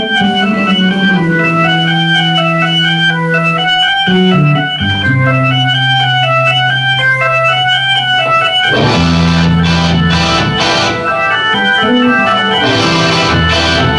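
Live rock band: a keyboard with an organ sound repeats a pattern of short high notes over long, held low notes, and the drums and cymbals come in about nine seconds in.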